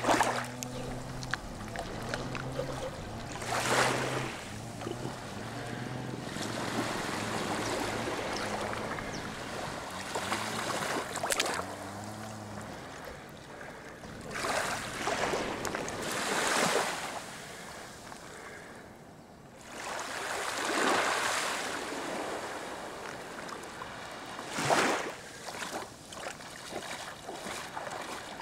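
Small waves washing onto a sandy beach in irregular swells of a second or so, over a steady wash of sea and wind. For the first dozen seconds a low hum runs underneath, shifting between a few pitches, and then it stops.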